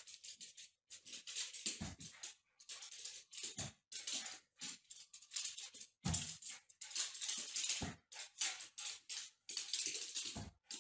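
A puppy's claws skittering and scrabbling on a tiled floor in quick irregular runs as it chases a balloon, with a dull thump about every two seconds, five in all.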